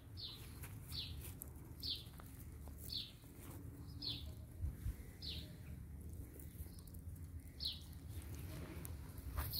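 A bird calling repeatedly outdoors: short, high chirps that drop in pitch, about seven of them at roughly one a second, over a steady low rumble.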